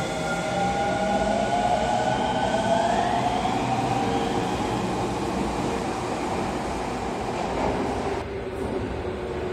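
Osaka Metro 21 series subway train pulling out and accelerating past, its traction motors whining in several tones that rise in pitch over the rumble of the wheels. The high part of the sound drops away suddenly about eight seconds in, as the last car clears.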